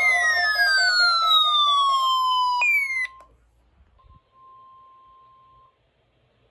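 Weather radio alarms sounding for a NOAA Weather Radio test: a loud electronic siren-like tone sweeps down in pitch, then a second short downward sweep, over a steady high tone. All of it cuts off about three seconds in, and a faint steady tone follows briefly.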